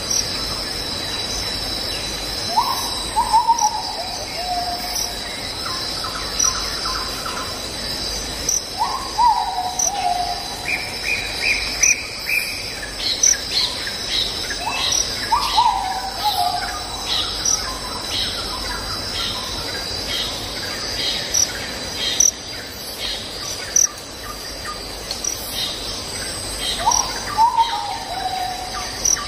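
Recorded forest ambience: a steady high insect trill under bird calls, with a clear descending whistled call repeating several times and bursts of short chirps between.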